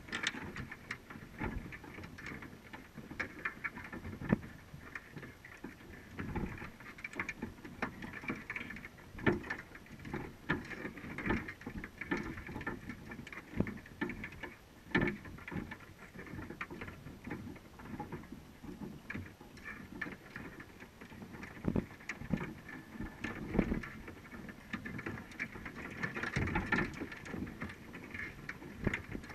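Muffled, irregular clicking, tapping and occasional knocks heard underwater through a camera housing: crabs inside a trap shifting and scraping against the wire mesh and bait cage.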